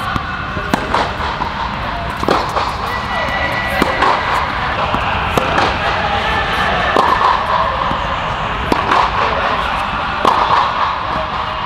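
Tennis rally: sharp pops of the ball off a Head Boom MP racket and the partner's racket, with bounces on the hard court in between, coming irregularly about a second apart, under an air-supported dome, over a steady background din.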